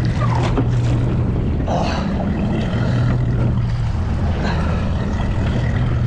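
Boat's outboard motor idling with a low steady hum, under wind noise and choppy water splashing against the side of the boat.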